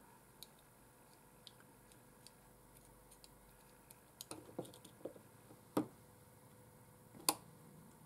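Small metal parts of a vintage ignition key switch clicking and clinking as it is handled and fitted together by hand. Scattered faint ticks, a run of light knocks about halfway through, then two sharper clicks in the last few seconds.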